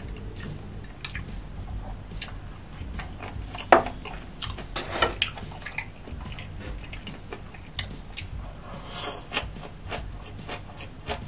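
Close-miked wet eating sounds: chewing and mouth smacks with scattered small clicks, a sharp click a little before four seconds in, and a noodle slurp about nine seconds in.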